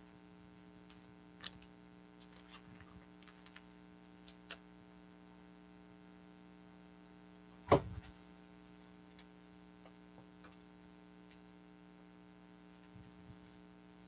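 Steady electrical hum with a few faint clicks and one sharp knock about eight seconds in, from trading card packs and cards being handled.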